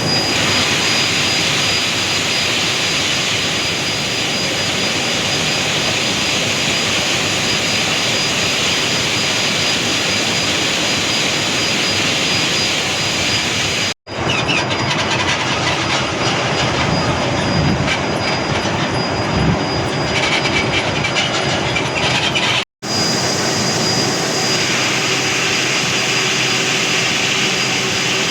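Heavy construction machinery running with a loud, steady mechanical roar and a faint high steady whine, broken by two momentary dropouts where the footage is cut.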